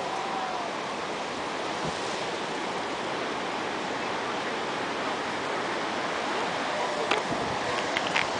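Steady rushing outdoor noise of wind and lake surf, with a few short clicks near the end.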